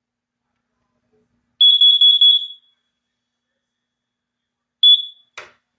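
Smoke and carbon monoxide alarm sounding under test: a quick run of about three loud, high-pitched beeps, then a single short beep about three seconds later, followed by a click.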